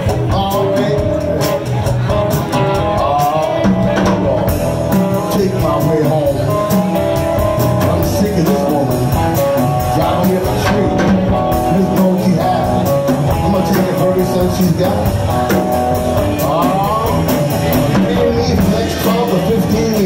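Live blues band playing an instrumental stretch: electric guitar, upright bass and drum kit, with a bending lead line over a steady beat.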